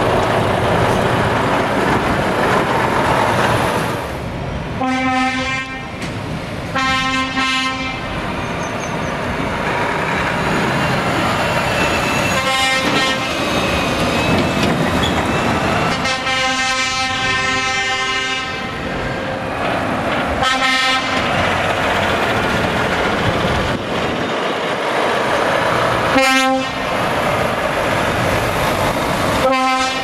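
Heavy diesel trucks pulling away and driving past, with repeated truck air-horn blasts over the engine noise: several short toots and one long blast of about three seconds midway.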